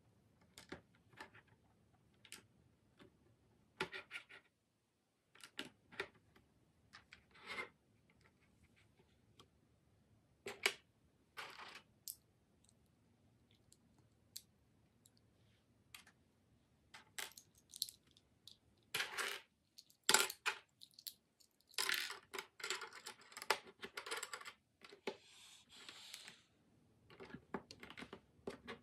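Plastic LEGO bricks clicking and clattering as loose pieces are picked from the pile and pressed onto a base plate: scattered short clicks, with a denser stretch of rattling about three-quarters of the way through.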